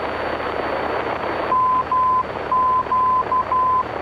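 VOR station's Morse code identifier for Morro Bay (MQO) coming through the aircraft's navigation radio audio over a steady hiss of static. About one and a half seconds in, a steady beep tone starts keying: dash-dash (M), a pause, then dash-dash-dot-dash (Q). This confirms that the radio is tuned to the right beacon.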